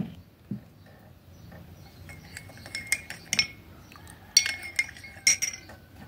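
Metal teaspoon clinking against a ceramic coffee cup while stirring and scooping milky coffee: a string of light clinks with a short ring, starting about two seconds in.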